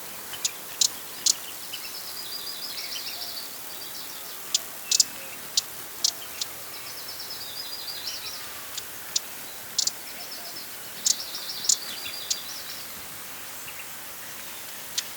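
Broad-billed hummingbird calling: sharp, short high chip notes at irregular intervals, with three longer runs of rapid chattering notes lasting a second or two each, over a steady background hiss.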